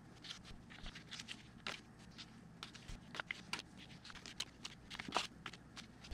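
US $1 and $5 paper bills being handled and leafed through one at a time: a quiet run of short, irregular paper rustles and flicks.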